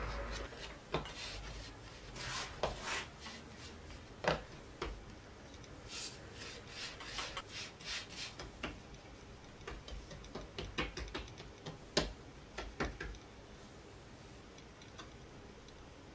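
Hands patting and pressing soft scone dough into a round on a floured wooden board: irregular soft pats and rubs, which die away about three-quarters of the way through.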